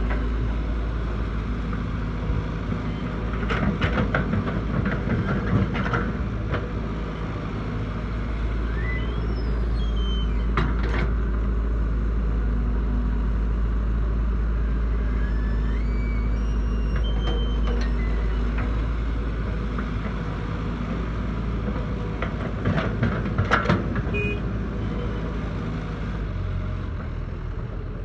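Excavator's diesel engine idling steadily, with a few sharp knocks now and then and some brief high chirps.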